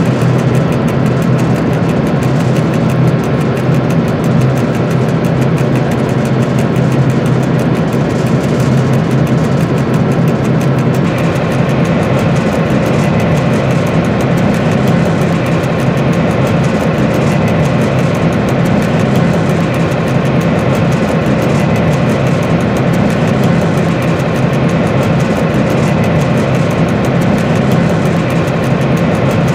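Diesel engine of a VR Dr12 locomotive running steadily under way, heard from inside the driver's cab, a loud even drone with track noise; its tone shifts slightly about a third of the way through.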